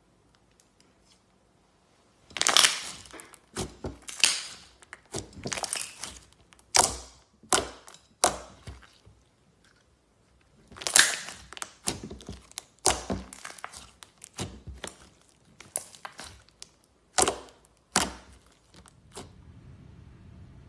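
Glossy slime being folded and squeezed by hand, giving off sticky crackling pops and clicks in irregular bursts that begin about two seconds in.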